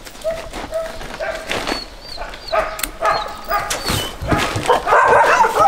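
Dogs yipping and whining in a string of short pitched calls, growing louder and busier near the end, with a few faint high chirps in the middle.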